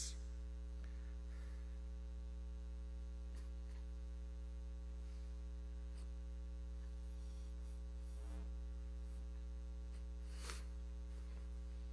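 Steady electrical mains hum with its evenly spaced overtones in the audio feed, with a couple of faint brief noises, the clearest near the end.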